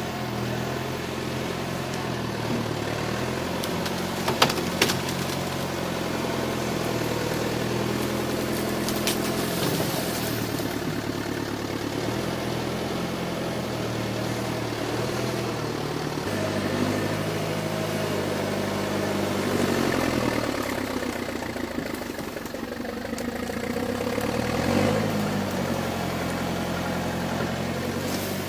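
John Deere 410 loader backhoe engine running steadily while it works, with a couple of sharp knocks about four seconds in.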